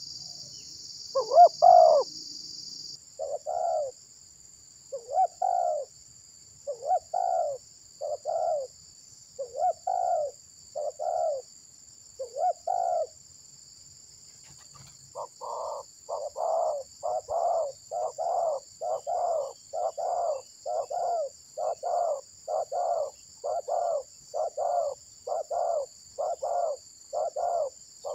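Spotted doves cooing: one loud call about a second in, then short coos every second or so, quickening from about halfway into a rapid run of about two a second. A steady high insect drone goes on underneath.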